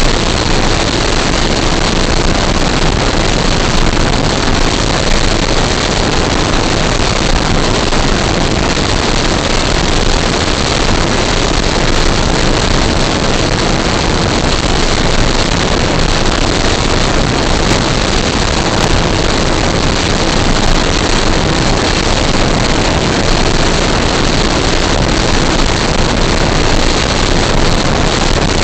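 Electric-powered 1:6 scale RC Cessna 182 in flight: the steady rush of propeller and wind noise, with a faint high whine from the motor.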